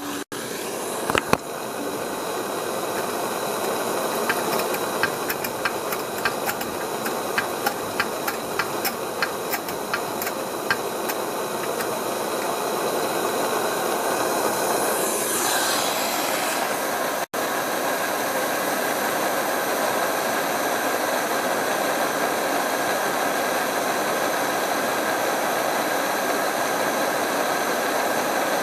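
Coleman Gold Bond 200A pressure lanterns burning with a steady hiss. For the first ten seconds or so a rapid run of clicks is heard as the fuel tank is hand-pumped to raise its pressure.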